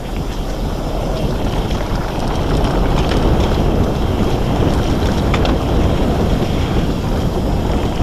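Wind rushing over the microphone and mountain-bike tyres rumbling on a dirt trail at speed, with a couple of light clicks from the bike.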